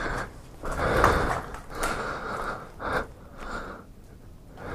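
A person breathing heavily inside a motorcycle helmet: short, noisy breaths in and out, coming faster than one a second and easing off near the end.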